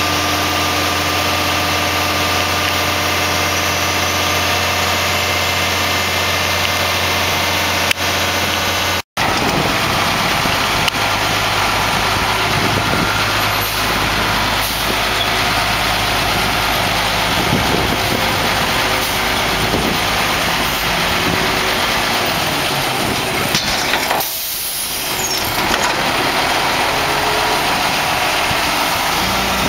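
Diesel engine of a 1992 Mack MR front-load garbage truck running steadily as the truck manoeuvres, with a short hiss about three quarters of the way through. Near the end a new, higher steady note comes in as the front forks lift a dumpster.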